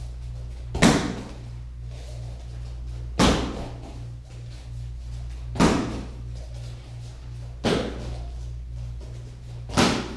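Taekwondo kicks striking a kicking pad: five sharp slaps, one about every two seconds, each with a short ring-off.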